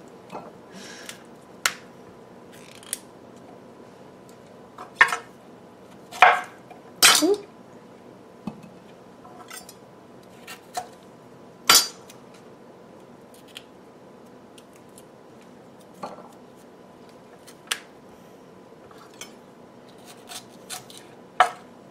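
Chef's knife cutting cauliflower florets free on a wooden cutting board: irregular sharp knocks and clicks of the blade meeting the board and the stems snapping, the loudest handful in the first half.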